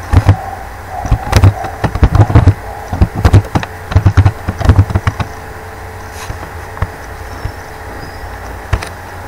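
Computer keyboard typing: a run of short, irregular key strokes over the first five seconds or so, over a steady low hum. Then the hum goes on alone, with a single click near the end.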